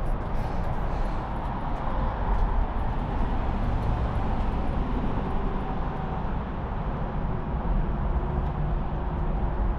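Steady outdoor traffic noise from a nearby road: an even rumble with no single standout event.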